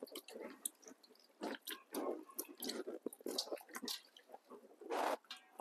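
Wet squishing and dripping from hands gently rubbing a raw half duck with a cut half lime: scattered, irregular soft squelches.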